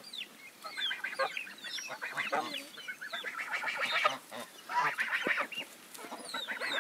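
A mixed flock of geese and chickens calling together at feeding time, with many overlapping goose honks and chicken clucks.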